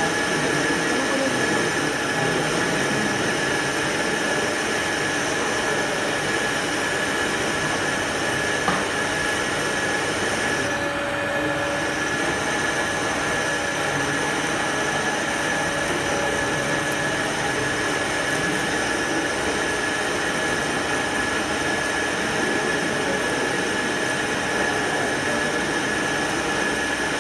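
Centre lathe running and cutting a soft iron workpiece: a steady machine noise with a constant high-pitched whine from the cut.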